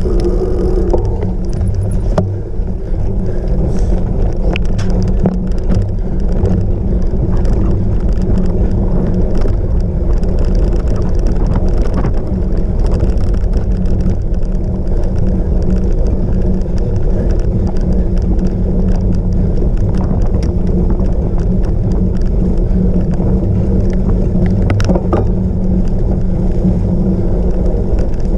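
Steady, loud rumble and rattle of a cyclocross bike being ridden over rough off-road ground, with scattered sharp knocks and a stronger one near the end.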